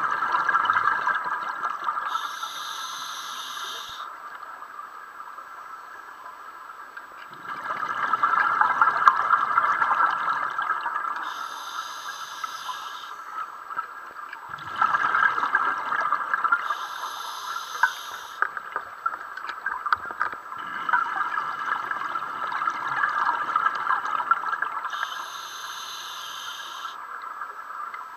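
Scuba breathing recorded underwater: four short inhalations through a regulator, each followed by a longer stretch of exhaled bubbles, in a slow, even cycle of about seven seconds.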